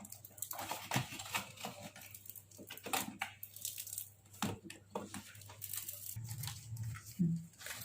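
Faulty membrane touch keypad of a Samsung microwave oven being peeled apart: plastic film crinkling and tearing, with scattered small clicks.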